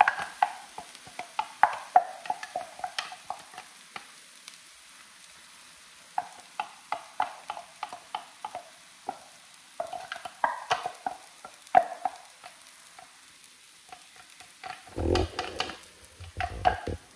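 Wooden spoon clicking and scraping against a frying pan and a glass container as minced garlic is tipped into the pan and stirred in, over a faint sizzle from the pan. There are clusters of quick taps, then a few heavier thumps near the end.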